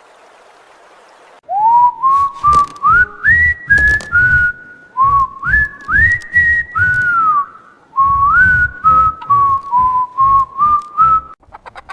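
A cheerful tune whistled in sliding notes over a steady beat, starting about a second and a half in.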